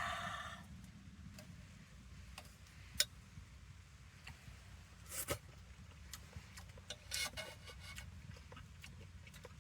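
Firewood burning in a small tent wood stove: scattered sharp pops and crackles, the loudest about three seconds in and again about five seconds in, over a steady low rumble.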